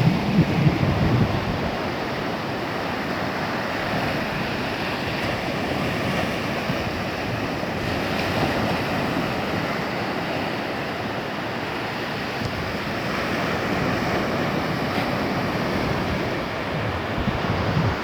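Steady rush and wash of water around a kayak, with wind buffeting the microphone, heaviest in the first second or so.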